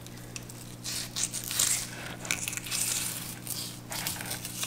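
Fillet knife slicing along a snook's backbone, rasping and crackling through the scales in irregular strokes, over a steady low hum.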